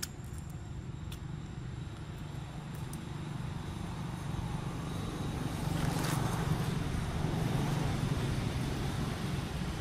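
Steady low rumble of outdoor background noise with a hiss over it, growing louder about halfway through and staying up.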